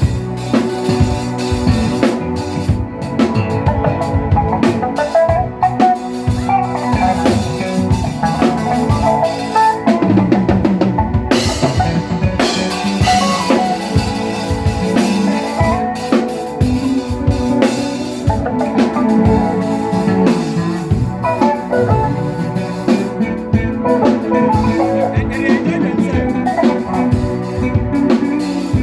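Music with a drum kit played prominently, many sharp hits over sustained pitched instruments.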